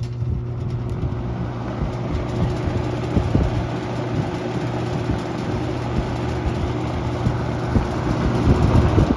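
Toastmaster 4437 box fan running on high: a steady rush of air over the motor's hum, coming on with a click at the start and switched off near the end as the spin-down begins.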